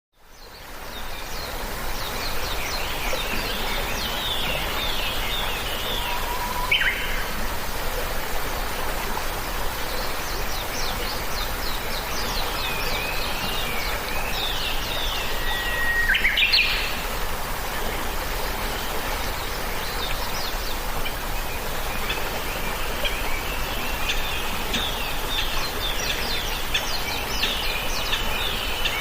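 Birds chirping and trilling in short, repeated bursts of high notes over a steady background hiss, fading in over the first second.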